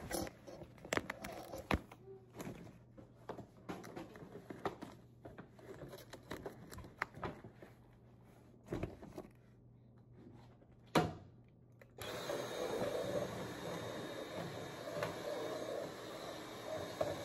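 Papers and desk items being shuffled and set down, with rustles and light knocks and one sharper knock. About twelve seconds in, a Dyson cordless vacuum switches on and runs steadily.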